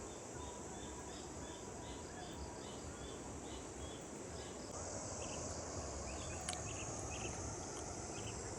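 Insects, crickets or similar, keeping up a steady high-pitched drone with a string of short repeated chirps over it, a few a second. The drone grows louder about halfway through.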